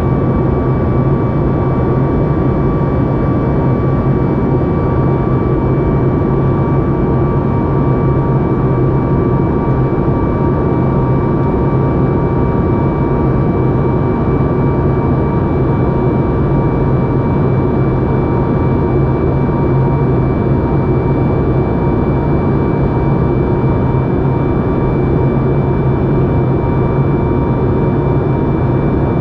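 Steady cabin noise of a Boeing 737 MAX 8 in flight: the rush of jet engines and airflow from its CFM LEAP-1B engines, with a low hum and a thin, even high tone running through it.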